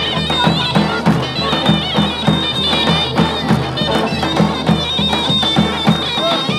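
Turkish folk music: a shrill, wavering wind-instrument melody played over a steady drum beat of about three strokes a second.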